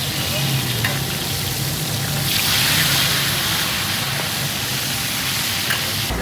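Hot oil sizzling steadily under fish fillets frying on a large flat griddle, swelling for a second or so a couple of seconds in, with a couple of light taps of a metal spatula.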